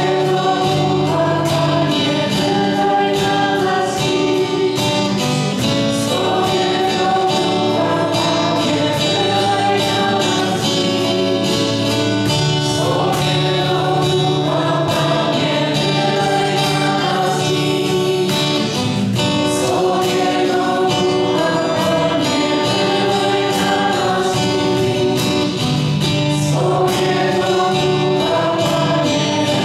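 A group of worshippers singing a hymn to the Holy Spirit together, in long held notes that change every second or two.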